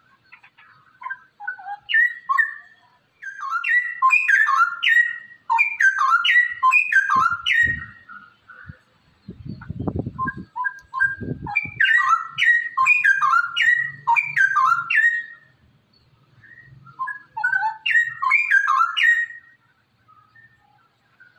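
A straw-headed bulbul (cucak rowo) singing three loud phrases with pauses between them, each a rapid run of notes jumping up and down in pitch. A low rumbling noise comes in the pause about halfway through.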